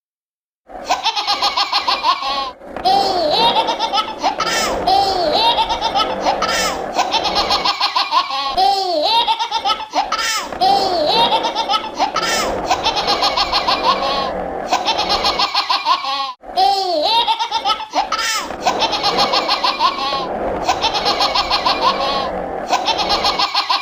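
A baby laughing in quick, continuous peals of giggling that start suddenly about a second in, with a few short breaks for breath.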